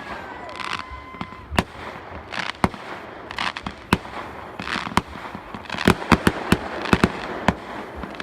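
Fireworks going off in quick succession: many sharp bangs at uneven intervals over a continuous crackling, fizzing haze, coming thicker in the second half.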